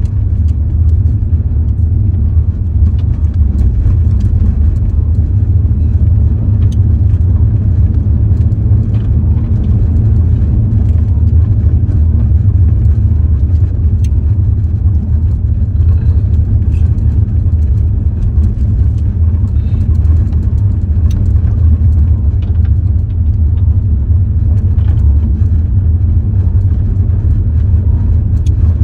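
Steady low rumble of a car driving on a gravel road, heard from inside the cabin, with scattered light ticks.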